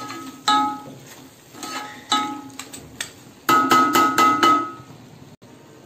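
A metal ladle knocking and scraping against a metal kadai while stirring a thick mutton fry, each knock ringing briefly. A few scattered knocks, then a quick run of five about three and a half seconds in.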